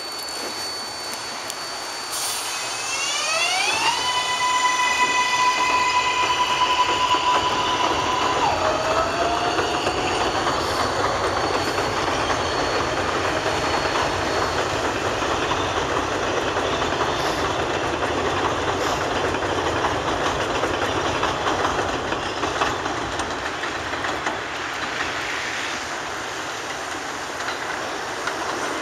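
R142A subway train pulling out of an elevated station: its motors whine in rising steps, hold one steady high tone for a few seconds, then drop and glide upward again as it gathers speed. The wheels clatter and rumble over the rails throughout.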